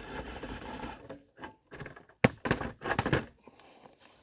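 Handling noise: rubbing and shuffling, then a sharp knock about two seconds in followed by a brief run of clicks and clatter.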